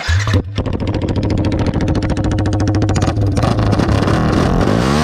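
Yamaha R15 V3's single-cylinder engine running loud on an open bend pipe with no silencer fitted. It cuts in suddenly, drops out briefly about half a second in and again around three seconds, and its pitch starts climbing near the end.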